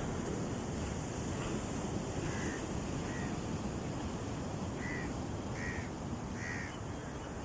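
Sea surf and wind on the microphone making a steady wash of noise, with a bird calling five short times from about two seconds in, the last three louder and close together.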